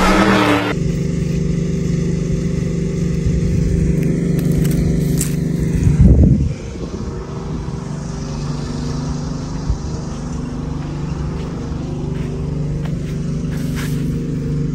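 Steady droning of race-car engines in an animated race, swelling briefly about six seconds in. After that the level drops suddenly and a quieter steady engine drone continues.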